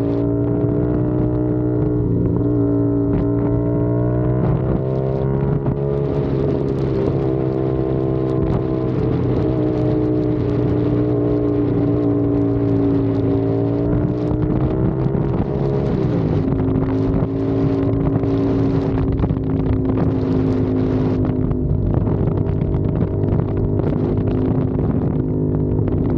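CFMOTO 450SR's parallel-twin engine and exhaust running at a steady riding pitch, which dips and recovers a few times. Wind buffets the microphone.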